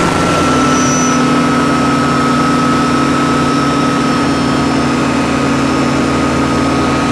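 Ultralight aircraft's engine and propeller droning steadily in flight, heard from on board, with air rushing past.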